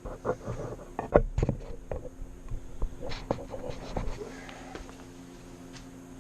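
Irregular light knocks and rustles of someone moving about and handling the camera, dying away after about four seconds, over a faint steady hum.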